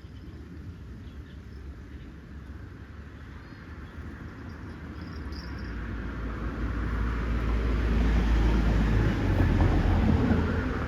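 A vehicle passing close by: a low rumble that builds over several seconds, is loudest about eight to ten seconds in, then begins to fade.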